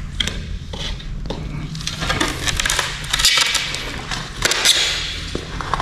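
A large ceramic floor tile being turned and set down onto its bed of tile adhesive, scraping and clicking against the neighbouring tiles: a run of gritty scrapes and small knocks, busiest in the middle.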